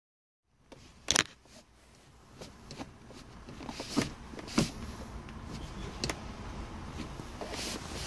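Alfa Romeo 147 gear selector linkage at the base of the lever clicking and knocking as the lever is worked, a sharp click about a second in and several louder knocks later, over a low rumble that builds from a couple of seconds in. The knocks are from a loose, sloppy linkage whose lever no longer springs back to the centre.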